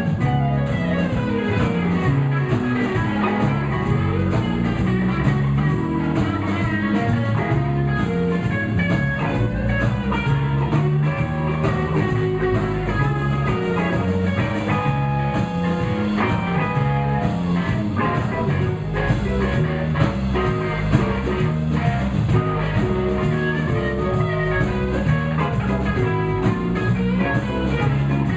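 Blues band playing an instrumental passage: guitar over bass and drum kit with a steady beat.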